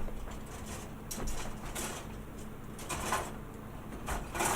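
Hard plastic model-kit parts runners being handled and shuffled: several short scraping, rustling clatters, the loudest near the end.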